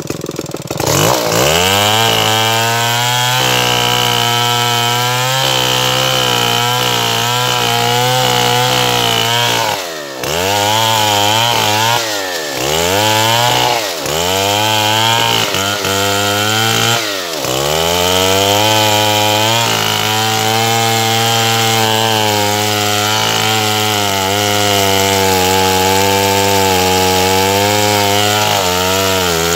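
Stihl 070 two-stroke chainsaw revving up from idle about a second in and running at full throttle, cutting through an acacia log. The revs dip and pick up again several times in the middle, then hold steady.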